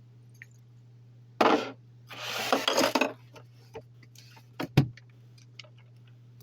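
Handling noise of small hard objects: two bursts of rustling and scraping, then a few scattered clicks and one sharp knock about five seconds in, over a steady low hum.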